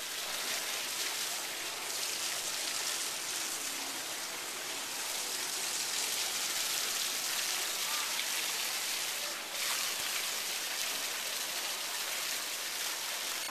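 Water pouring from a chute and splashing steadily, a continuous rain-like hiss of falling water.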